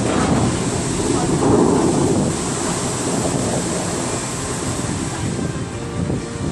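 Bellagio fountain show's tall water jets falling back into the lake as a rushing roar, loudest about one to two seconds in, then easing as the jets die down.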